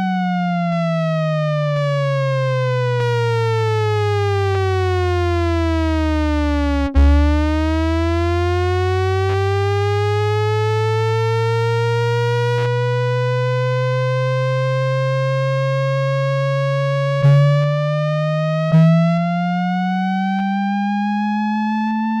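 Synthesizer tone from a YM3812 FM sound module, its pitch smoothed by a slew rate limiter set very slow. One continuous note glides slowly down for about seven seconds, then a new attack starts it gliding slowly up again. Two more note attacks come near the end while it keeps rising.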